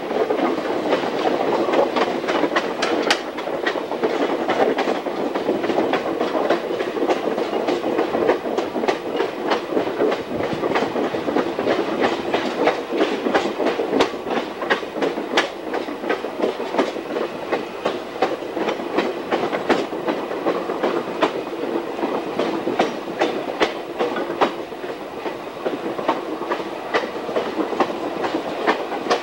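Railcar wheels rolling along jointed track, heard from aboard the moving train: a steady rumble broken by many sharp, irregular clicks.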